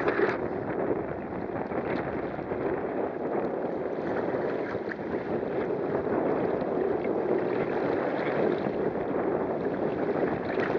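Strong gusty wind buffeting the microphone over the steady rush and splash of choppy water along the hull of a sailing kayak under way.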